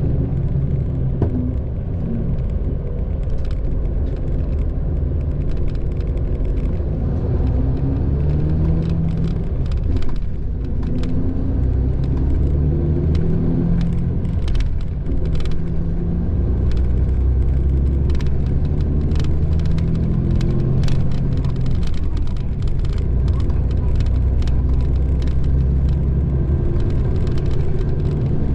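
Mitsubishi Fuso Aero Ace coach on the move, heard from inside the passenger cabin: a low diesel engine drone whose pitch rises and falls several times as the bus accelerates and eases off, over steady tyre and road noise with scattered light clicks.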